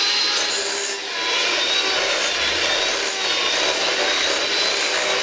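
Electric hand beater running on high with a high, steady motor whine, its beaters churning butter and crunchy peanut butter in a glass bowl.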